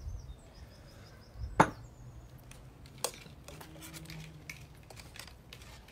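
Spoon and ceramic bowls knocking as food is served: a sharp knock about a second and a half in, another about three seconds in, then a few lighter taps.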